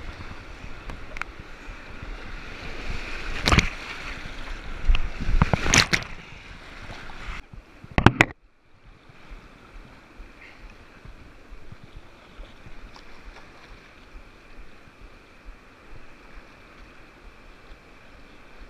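Whitewater rushing around a kayak as it runs a rapid, with several louder splashes over the bow and deck in the first half. After a sharp splash about eight seconds in, it drops to a quieter, steady sound of flowing water.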